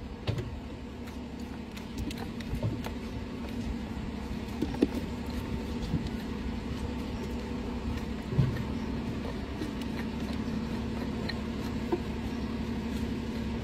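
Steady low mechanical hum, with scattered light knocks and clinks of metal from the steel-shod hoof and shoe on the metal hoof stand.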